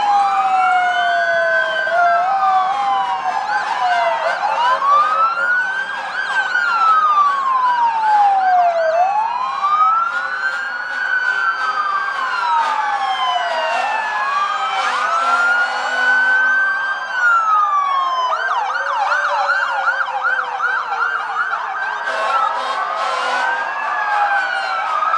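Several emergency vehicle sirens wailing at once, their pitches sweeping up and down out of step with each other. About eighteen seconds in, one switches to a fast yelp, and a lower-pitched siren rises and then slowly falls in pitch.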